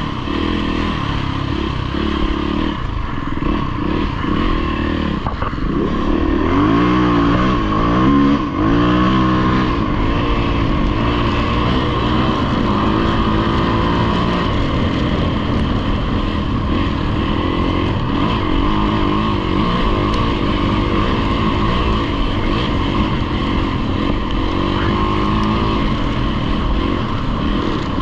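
Dirt bike engine running hard under the rider, its pitch rising and falling as the throttle is worked, with a run of quick revs up and down about six to ten seconds in.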